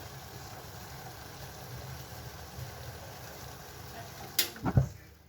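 Tea boiling in a pot on a stove, a steady low rumble. A sharp click comes about four seconds in and a heavier knock just after, and the rumble then stops.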